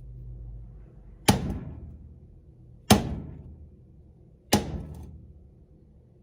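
A hammer strikes a thin metal punch three times, about a second and a half apart, each blow dying away quickly. The punch is driving a hinge rod out of a wing mirror bracket.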